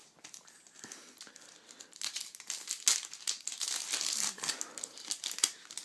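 Foil wrapper of a Yu-Gi-Oh Shadow Specters booster pack crinkling as it is torn open, faint at first and louder and denser from about two seconds in.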